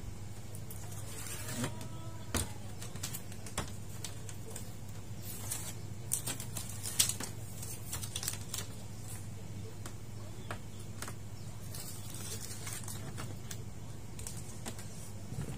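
Hands working on a TV's plastic rear housing, pressing and smoothing strips of tape onto it: scattered light clicks, taps and short rubbing sounds on plastic, the sharpest click about halfway through. A steady low hum runs underneath.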